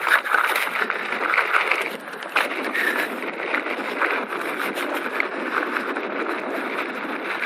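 Wind rushing over the microphone and tyres rolling on a dirt trail as an electric mountain bike rides down a jump line, with a few sharp knocks from the bike over bumps.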